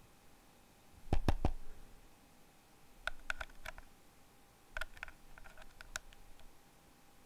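Short plastic clicks and knocks from a head-mounted visor headset being handled and unfastened, in three brief clusters, the first about a second in the loudest, over a faint steady hum.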